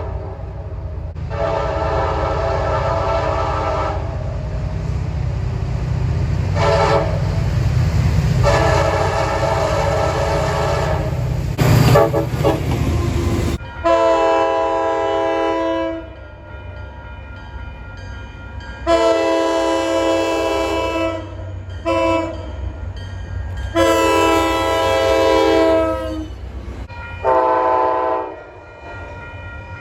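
Locomotive air horns sounding loud chords in separate blasts. First a horn gives long and short blasts over the heavy rumble of a train passing close by. After an abrupt cut about halfway through, a horn sounds two long blasts, a short one and a long one, then one more blast.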